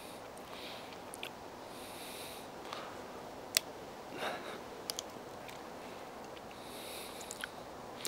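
A few light, sharp clicks of a steel knife tip striking a freshly carved green nut and the log under it, the loudest about three and a half seconds in, over a faint steady background hiss. A short sniff comes just after the loudest click.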